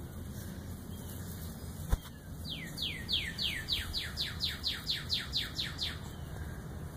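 A bird singing a fast run of about a dozen down-slurred whistled notes, about four a second, starting about two and a half seconds in. Just before the song there is a single sharp knock.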